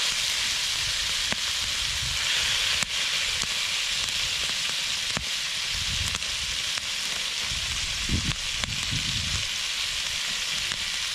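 Chunks of moose meat frying in fat in a skillet over a campfire: a steady sizzle with a few sharp pops.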